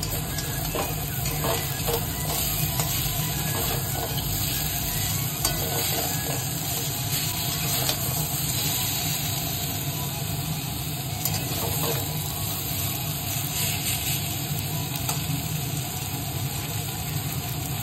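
Pointed gourd pieces sizzling as they fry in oil in a steel kadai, with a steel spatula stirring and scraping them against the pan in scattered clicks, over a steady low hum.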